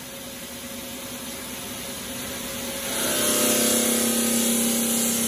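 Omag Digitale 5 CNC bridge saw running: a steady motor hum with a hiss that builds gradually, then gets clearly louder and fuller about three seconds in.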